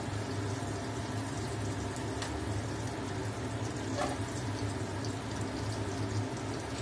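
Water boiling in a covered pot on a gas stove: a steady bubbling hiss with a low hum under it. There is a light clink about four seconds in.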